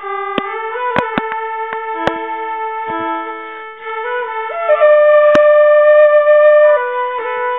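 Background music: a slow melody of long held notes, with a few sharp taps.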